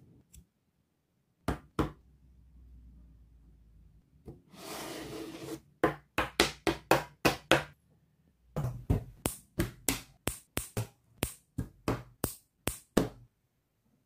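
Sharp clicks of plastic building bricks snapping together in quick runs: two single clicks, then a fast run of about ten, then after a short pause a steady run of about four a second. A brief rushing noise comes a little before the fast run.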